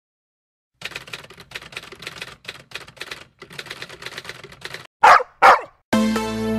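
Typewriter-style typing sound effect: a quick, uneven run of key clicks lasting about four seconds as a title is typed out. Then two loud dog barks about half a second apart, and electronic pop music starts near the end.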